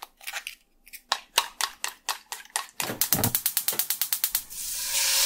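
Title-intro sound effect: a run of sharp ticks, sparse at first and then quickening, some with low thuds under them past the middle, giving way near the end to a rising hiss that swells toward the music.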